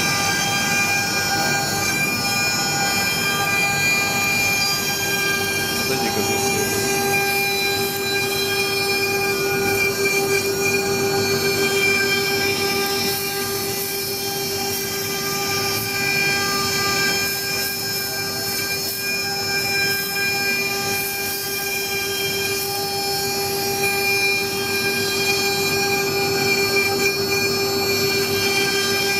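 CNC router spindle running with a steady whine as the bit carves a wooden relief, cutting in passes a quarter millimetre apart.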